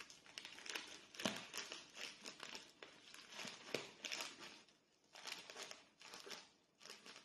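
Faint crinkling and rustling of a plastic mailer bag being cut open with scissors and pulled apart, coming in irregular spurts with a couple of short pauses near the end.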